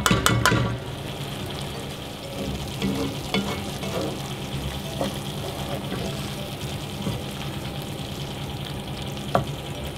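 Onions and sweet peppers sizzling in a pot as they sweat down, stirred with a wooden spoon, with light scraping ticks. A few sharp taps right at the start as seasoning is knocked from a plastic bowl into the pot.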